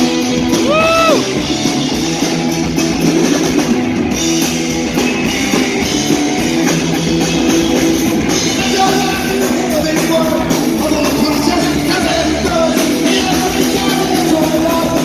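Heavy metal band playing live, with distorted electric guitar and a drum kit over a steady, loud mix. About a second in, a held note bends upward.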